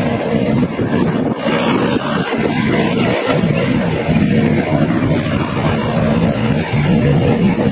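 Cheetah 16-inch 127cc push mower's small petrol engine running steadily as it is pushed across the lawn cutting grass.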